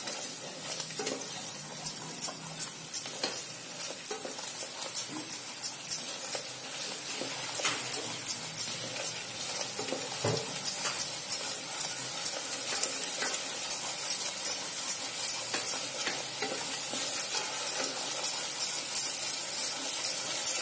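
A spoon stirring and scraping thick ground masala paste as it fries in oil in an aluminium pressure cooker: regular scrapes about two to three a second over a steady sizzle. The paste is being sautéed until its raw smell goes.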